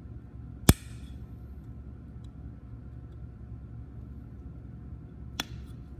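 Cutters snipping through a cast-metal sprue tree, freeing the star parts: a sharp snap under a second in and a second one near the end, with a faint tick between, over a low steady hum.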